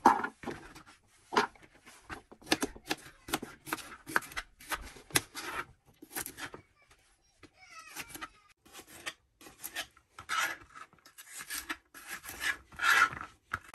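Serrated kitchen knife cutting raw carrots into sticks on a plastic cutting board: a run of short, irregular cutting strokes and taps, easing off for a few seconds around the middle.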